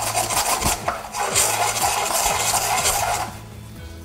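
Stilton and grape flatbread dough hissing in a hot frying pan, in two stretches with a short break about a second in, stopping abruptly about three seconds in.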